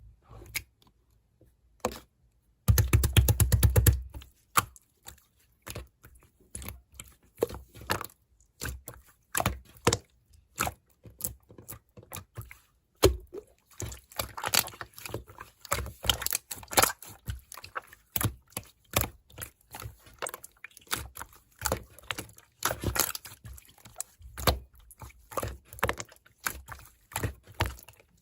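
Hands playing with slime: a dense run of rapid crackling clicks about three seconds in, then irregular sticky clicks and pops as it is pressed and pulled.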